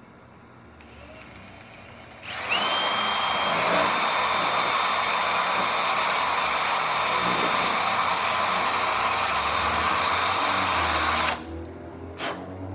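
Cordless power drill boring out fasteners in a motorcycle's front fairing. It spins up with a rising whine about two seconds in, runs steadily for about nine seconds, then stops suddenly.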